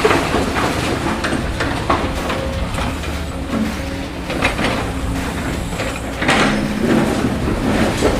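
Toy excavator at work: a steady motor whir with repeated knocks and scrapes as it digs, the loudest stretch about six seconds in.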